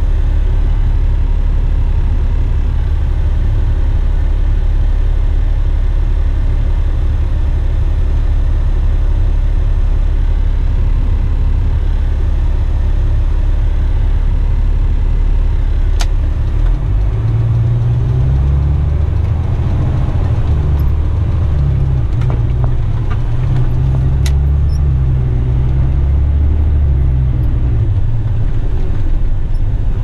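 Western Star tipper truck's diesel engine heard from inside the cab: a steady low idle, then a little past halfway the truck pulls away and the engine note rises and falls in steps as it works up through the gears.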